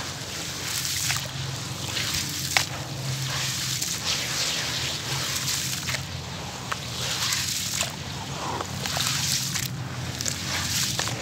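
Hands stirring crumbled cement and grit in a basin of water: continuous wet sloshing and swishing, with scattered gritty clicks as the crumbs grind and break up in the slurry.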